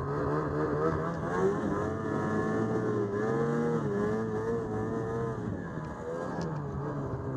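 Ski-Doo snowmobile engine running hard under throttle, its pitch rising and falling several times as the rider works the throttle through the snow.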